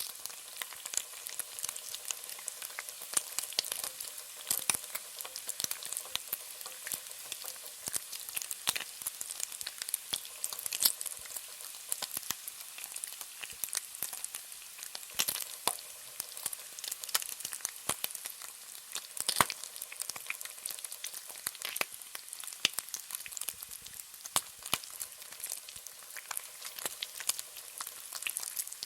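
Bacon frying in a pan: a steady high sizzle with irregular sharp crackles and pops from the spitting fat.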